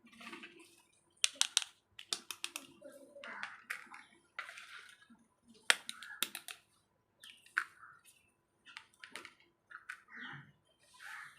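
Small toy kitchen pieces being handled: irregular sharp clicks and taps, with short rustling swishes in between.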